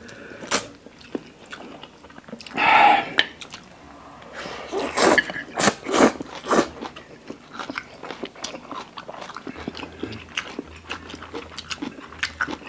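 Close-miked eating of instant ramen noodles: wet chewing clicks and lip smacks throughout. A long slurp comes near three seconds in, and a run of loud slurps follows between about five and six and a half seconds.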